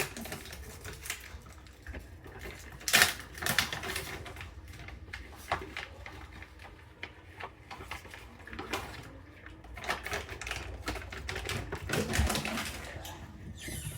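German Shepherd mix puppy eating, with irregular crunches and clicks of food and bowl, bunched in a few spells.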